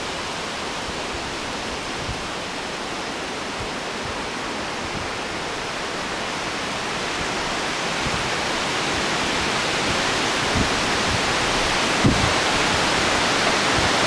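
Steady, even rushing noise that slowly grows louder, with a couple of faint low thumps in the second half.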